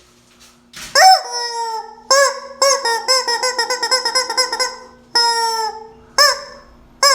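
Rubber squeaky chicken toy squealing as it is squeezed: a long squeal falling in pitch about a second in, then a quick run of short squeaks, another long squeal after five seconds and single short squeaks near the end.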